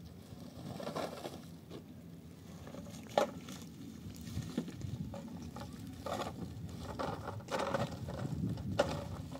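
Footsteps crunching on dry, stony ground, with the rustle of a carried sack, over a low steady rumble. Two sharper clicks stand out, about three seconds in and near the end.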